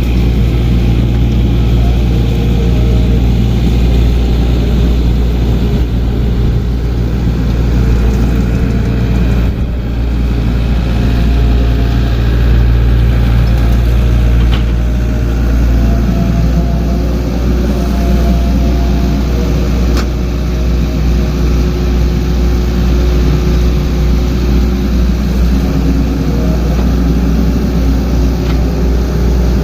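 Diesel engine of a mini bulldozer or excavator running steadily while working, with a small shift in its low note about halfway through.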